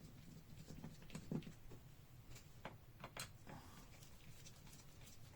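Faint, irregular small clicks and scrapes of a screwdriver turning the screws on a laptop's bottom cover, loosening them.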